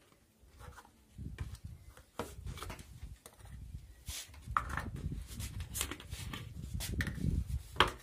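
An empty plastic water bottle handled against a plastic tray: irregular plastic clicks, taps and crinkles over a low rumble, busier in the second half, with the sharpest click near the end.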